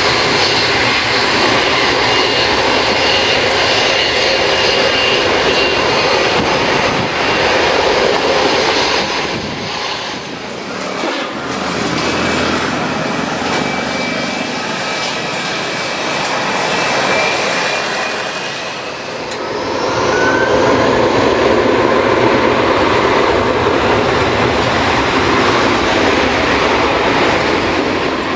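Jet aircraft engines running loud: a steady rush with a faint high turbine whine. The sound dips briefly a little over a third of the way in and again about two-thirds in, then rises again.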